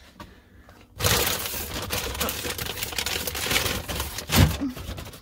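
Phone microphone rubbing against hair and clothing: loud crackling, rustling handling noise starting about a second in, with a dull thump near the end.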